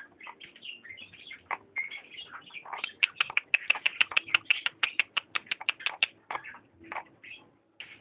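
Canary chicks cheeping, short high chirps throughout, with a fast, even run of louder cheeps for about three seconds in the middle.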